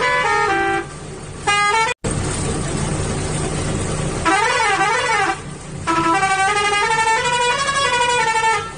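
Electronic toy-vehicle sound effects: a stepped, beeping horn tune that cuts off suddenly about two seconds in, then an engine-like rumble, a short warbling siren-like wail, and sliding horn tones.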